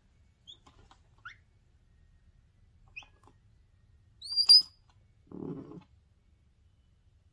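Patagonian mara calling: a few short, high, rising squeaks, then a louder shrill squeak about four and a half seconds in, followed by a brief lower, rougher call.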